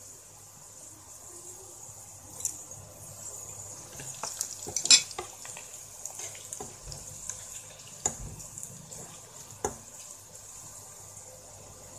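Sliced onions sizzling steadily in hot oil in a nonstick pan while a spatula stirs and scrapes them, with scattered knocks of the spatula against the pan, the sharpest about five seconds in.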